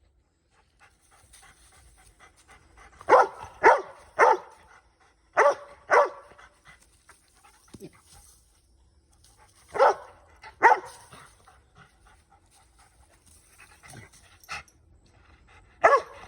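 Red-nose pit bull giving short barks in quick clusters, with panting in between, as it leaps at tree branches.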